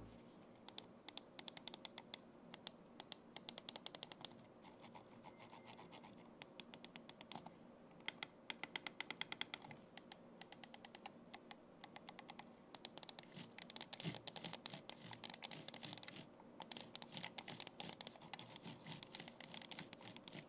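AJAZZ AJ139 Pro gaming mouse buttons being clicked over and over in quick runs of sharp clicks, with short pauses between runs.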